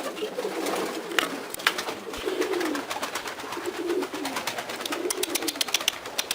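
Domestic pigeons cooing in their loft: several low, wavering coos one after another and overlapping. There are scattered sharp clicks, and a quick run of clicks near the end.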